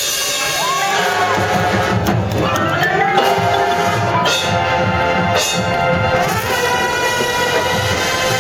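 High school marching band playing: brass holding sustained chords over percussion.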